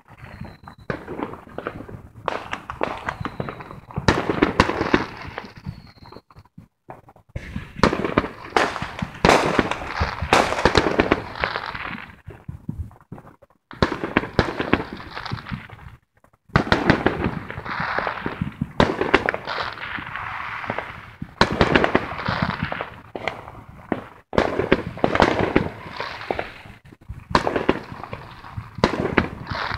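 Fireworks going off: dense volleys of crackling pops and bangs, broken by a few brief pauses.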